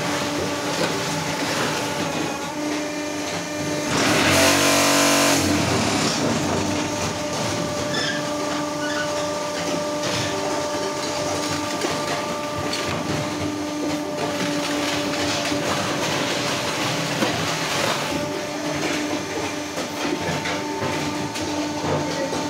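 Block-making machine running: a steady motor hum over a continuous mechanical rattle, with a louder buzzing stretch about four seconds in lasting a second or so.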